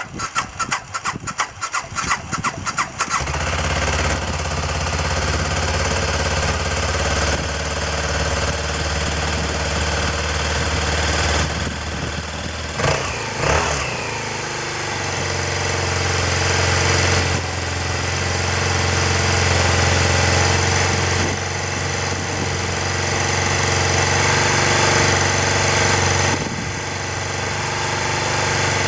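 BMW F650 Funduro's single-cylinder engine cranking on the electric starter for about three seconds, then catching and settling into a steady idle on its first start after a long lay-up. About thirteen seconds in the revs waver briefly, then it idles on evenly.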